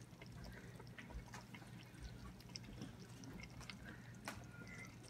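Faint wet sounds of cooked cabbage and sliced sausage being lifted with tongs into a bowl, with a few light clicks, one a little sharper about four seconds in, over a low steady hum.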